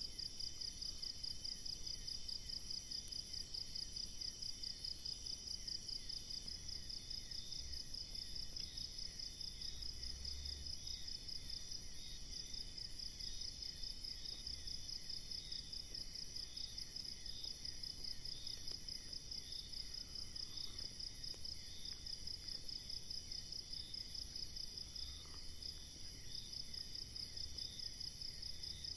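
Steady chorus of insects trilling at several high pitches at once, each with a fast, even pulse.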